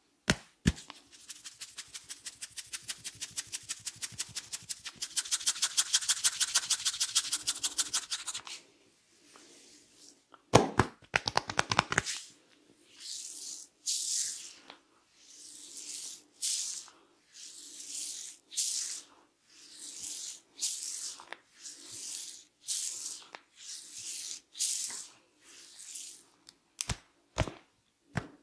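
A barber's hands massaging a head. First comes fast, even tapping, about seven strikes a second, for the first eight seconds, then a short burst of quicker, louder slaps. After that come slow rubbing strokes about once a second, with a few sharp clicks near the end.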